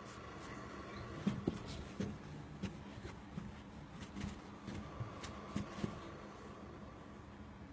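Faint rustling with a scattered series of soft taps and clicks, most of them in the middle of the stretch.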